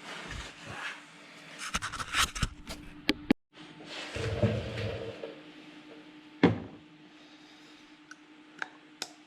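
Handling noises as oil-filter parts are worked with by hand: a run of clicks and scrapes, a short rustle, then one sharp knock, with a few small ticks after it. A faint steady hum lies underneath.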